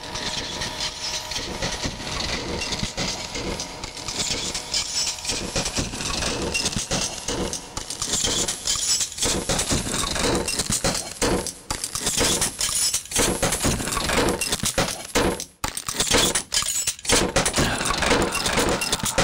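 Plastic squeeze bottle laying pancake batter onto a hot griddle: a dense, irregular crackling and clicking of sputtering batter and sizzle.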